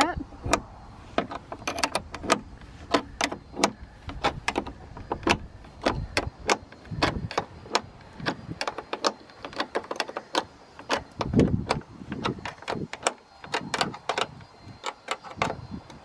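Wrench and Allen key working the nut on a hood latch: many sharp metal clicks and clinks, irregular and several a second, with a couple of duller knocks.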